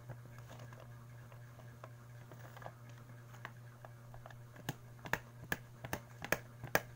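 Knife dicing a bar of kojic soap into small cubes on a metal tin, with the blade clicking against the tin. The clicks are faint and scattered at first, then come sharper, about two a second, from about two-thirds of the way in.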